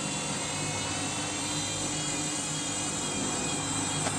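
Candy front-loading washing machine in its spin, the motor and drum whining at a steady speed with an overloaded but fairly balanced load. A short click near the end.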